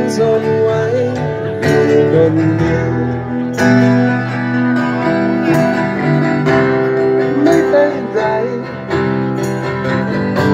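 Live band music played over a PA, led by guitar, with no lyrics sung for most of the passage.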